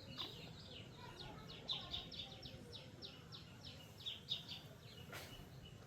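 A small bird chirping rapidly: long runs of short, falling high chirps, several a second. A brief rush of noise cuts across about five seconds in.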